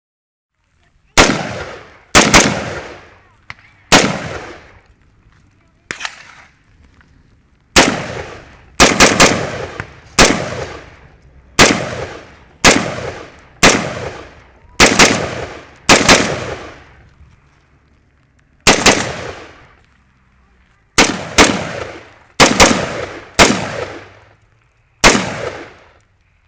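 AR-15 rifle in 5.56/.223 fired shot by shot to empty a magazine: about two dozen sharp cracks at an uneven pace. They come as singles and quick doubles and triples with short pauses between, and each shot trails off over about a second.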